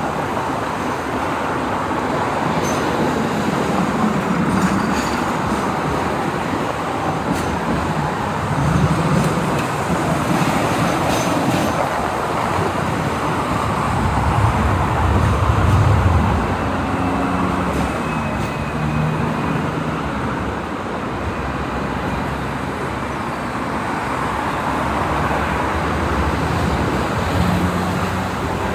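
Hong Kong double-decker tram running along its street track, its steady rail and motor noise mixed with heavy road traffic, including double-decker buses and cars passing alongside, which swells in low rumbles now and then.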